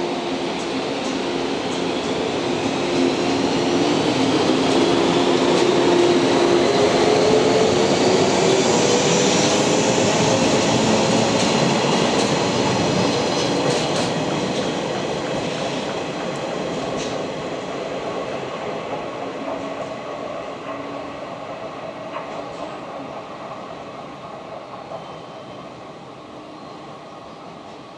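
JR West 115 series electric train pulling away and accelerating. The traction motors' whine rises steadily in pitch as the cars pass close by, with wheels clicking over rail joints. The sound then fades steadily as the train draws away.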